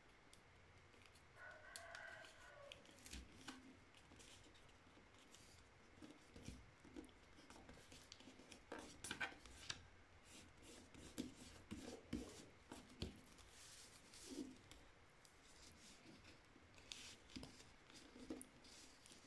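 A sheet of paper being folded and creased by hand: faint, scattered rustles, crinkles and soft taps as the fingers press the folds flat.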